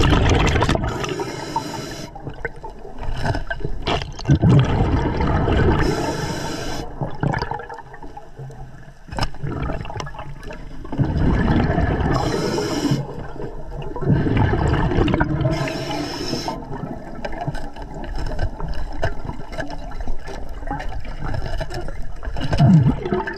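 Scuba diver breathing through a regulator underwater: a short hissing inhale about every four to six seconds, with rushing, bubbling exhaust between them.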